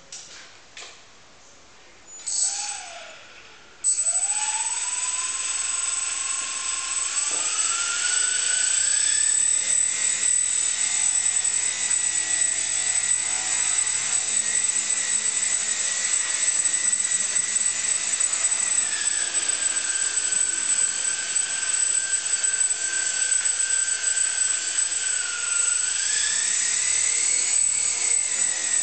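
Brushless motor spinning a small RC airplane propeller, starting suddenly about four seconds in. Its whine rises in pitch over several seconds, holds steady, dips partway through and rises again near the end, over a steady hiss.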